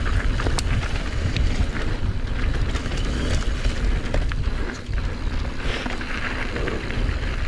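Mountain bike riding fast down a dirt flow trail, heard from a GoPro on the bike or rider: wind buffeting the microphone over a constant rumble of tyres on the ground. Sharp clicks and rattles of the chain and frame come every so often over bumps.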